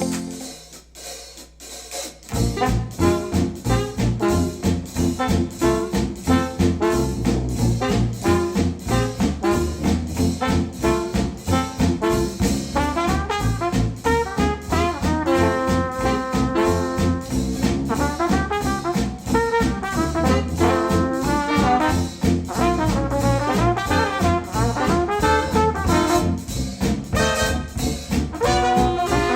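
Brass-led instrumental with trumpet and trombone over a drum kit and a steady beat, starting about two seconds in after a brief quiet gap, played back through Wharfedale Denton 80th bookshelf speakers driven by a NAD C 388 integrated amplifier.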